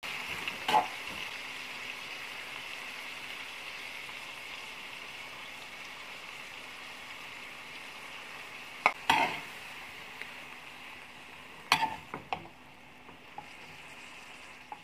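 Pork and tomatoes sizzling steadily in a metal wok as they are stir-fried, with tiny shrimp (alamang) stirred in partway through. A metal spatula knocks and scrapes against the wok a few times, once near the start, around nine seconds in and around twelve seconds in. The sizzle gets a little quieter near the end.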